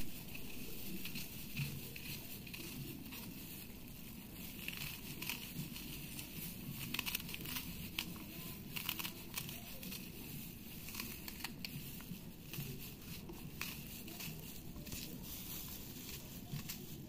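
A knife cutting through an onion held in the hand, faint, with irregular crisp clicks and the crinkling of a thin plastic glove.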